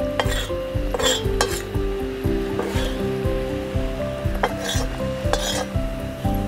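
A metal spatula scraping and clinking against a deep iron tava and a steel plate as roasted matki sandge are scooped out, in repeated short strokes, over background music with a steady beat.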